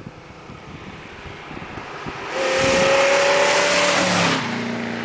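1969 Plymouth Barracuda fastback's V8 engine at full throttle, growing louder as the car approaches. It passes close by about four seconds in, and the engine note drops in pitch and fades as the car pulls away.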